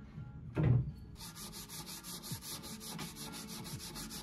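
A heavy wooden thump about half a second in, then sandpaper on a hand sanding pad rubbing over a bare oak tabletop in quick, even back-and-forth strokes.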